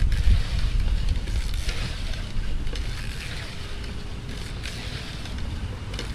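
Wind buffeting the camera microphone: a low rumble with a hiss over it, strongest in the first couple of seconds and easing after.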